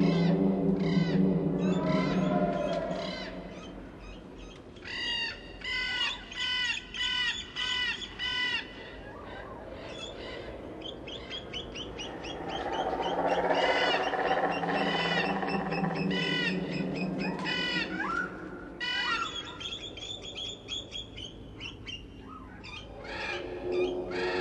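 Quick runs of short, bird-like chirping calls over a low humming drone that swells and fades twice.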